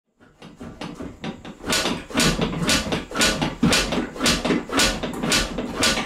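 Suspension of an electric dirt bike built on a Kawasaki KX250 frame, knocking repeatedly as a rider bounces on it, about two knocks a second. The knocks start quietly and grow louder after the first second or so.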